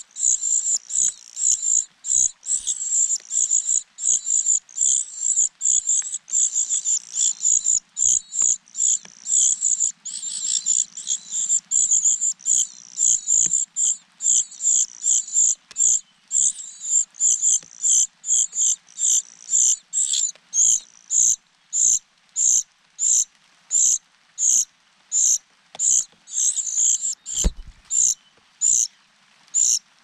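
Cuckoo chick begging with thin, high-pitched calls, fast and running together at first, then settling into sharp calls about two a second. This is the begging of a fledgling parasitic cuckoo that is not being fed. A single soft thump comes near the end.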